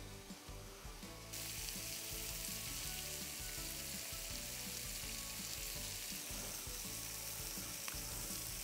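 Prawns frying on a hot cast-iron griddle plate: a steady sizzle that gets louder about a second in.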